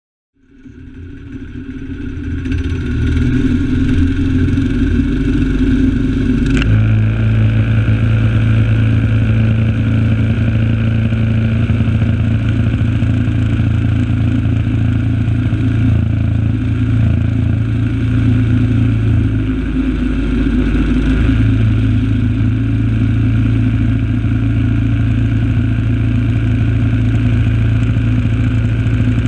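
Predator 212 single-cylinder four-stroke engine running under load, driving the vehicle's wheels through the chain transmission with the dog clutch engaged, with drivetrain clatter. It fades in over the first couple of seconds. About six and a half seconds in a sharp click comes and the engine note changes and steadies, dipping briefly around twenty seconds.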